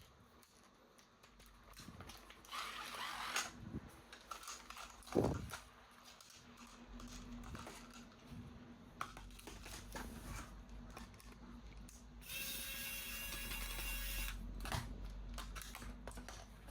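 Toy and packaging being handled: rustling, light knocks and a knock about five seconds in, then a steady buzz lasting about two seconds near the end.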